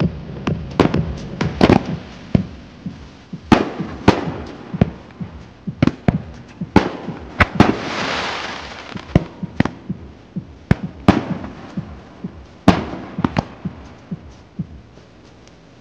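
Fireworks display: a rapid, irregular series of sharp bangs from shells launching and bursting overhead. About eight seconds in, a rushing hiss swells and fades as a ground fountain sprays. Music plays faintly underneath.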